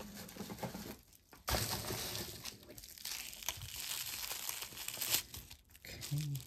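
Wrapping or packaging crinkling and rustling as jewelry pieces are dug out of a box by hand. It starts about a second and a half in, after a short lull, and goes on for several seconds.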